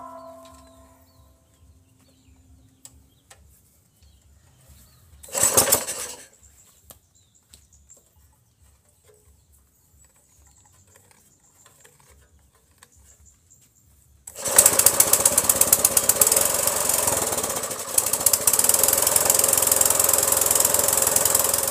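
GX200-type small single-cylinder engine being pull-started after a piston-ring rebuild: a brief pull about five seconds in that does not catch, then about 14 seconds in it fires and runs steadily with a rapid, even beat.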